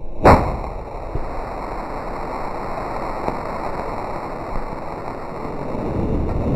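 A single loud bang as a 1.4G canister artillery shell, loaded upside down, blows apart inside its cardboard mortar tube at ground level, followed by a steady hiss with a few faint pops.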